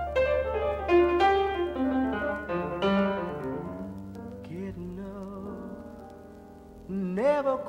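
Instrumental break in a bluesy folk song: quick runs of struck notes over a long held bass note, thinning out and growing quieter, then a loud wavering held note comes in near the end.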